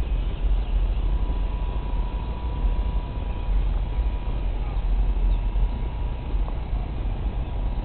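Wind buffeting the microphone: a heavy, uneven low rumble. A faint thin steady whine sits over it from about one to four seconds in.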